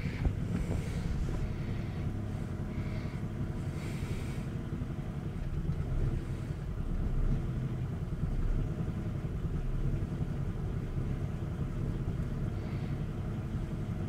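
2007 Ford Falcon BF Mk II ute's engine running with its accessory drive belt removed, heard inside the cabin as a steady low rumble with a continual thudding down in the passenger-side wheel well. The thud persists without the belt, so the belt-driven power steering pump is not the cause; the owner suspects a gearbox or engine mount letting something shake against the firewall.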